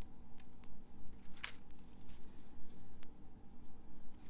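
Paper and vellum die-cut pieces handled by hand: faint ticks and small rustles, with one brief, louder paper rustle about a second and a half in.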